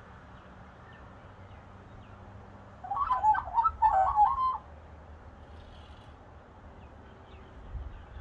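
Australian magpie giving a short burst of warbling song, a quick run of notes jumping up and down in pitch, about three seconds in and lasting under two seconds. Faint chirps from other birds sound in the background.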